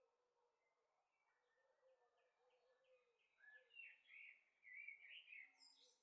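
Faint birdsong: small birds chirping, with a quick run of louder chirps in the second half.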